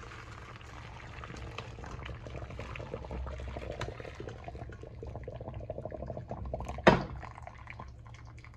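Hot curdled milk poured from a pot through a stainless steel mesh sieve into a bowl: the whey splashes and trickles through the mesh as the curds are strained out. A single sharp knock comes about seven seconds in, followed by lighter dripping.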